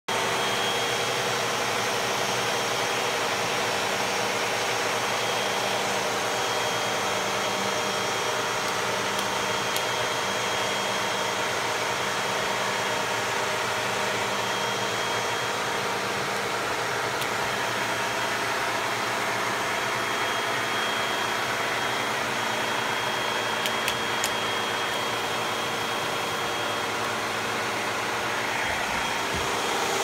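Vacuum cleaner with a brush nozzle running steadily, a constant whirring motor noise with a steady high whine.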